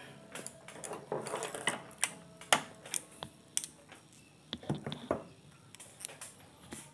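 Irregular plastic clicks and knocks as an analog multimeter is handled and set down on a workbench, its test leads rattling.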